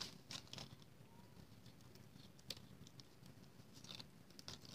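Near silence with a few faint ticks and rustles from red cardstock being handled and adhesive backing strips being peeled off.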